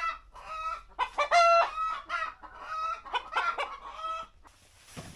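Chickens clucking and calling in a quick run of short, pitched squawks, loudest about a second and a half in, then a faint rustle near the end.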